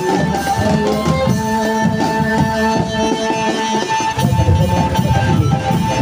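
Live drum band playing a fast tune: marching snare, tenor and bass drums beating under a held melodic lead line. The drumming grows heavier about four seconds in.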